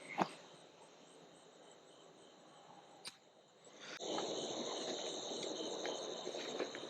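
Night-time crickets chirping steadily, with two sharp clicks, one at the start and one about three seconds in. From about four seconds on, a louder rustling noise joins them.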